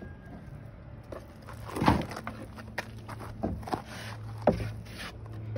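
A plastic spreader scraping and knocking as thickened West System epoxy is worked out of a plastic tub and spread onto the boat's transom material, with two sharper knocks about two seconds in and about four and a half seconds in. A low steady hum runs underneath and grows louder near the end.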